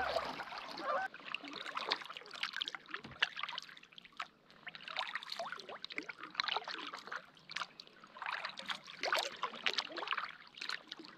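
Kayak paddle strokes in calm water: irregular small splashes, with water trickling and dripping off the blade.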